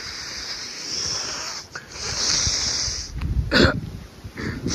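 Strong storm wind: a steady high hiss of wind, then gusts buffeting the microphone with a low rumble from about three seconds in, the loudest just after that.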